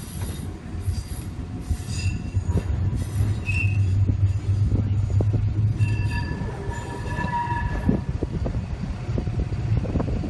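Heritage tram running on its rails: a steady low rumble with scattered knocks, and the wheels squealing in high tones, briefly about three and a half seconds in and more strongly for about two seconds from six seconds in.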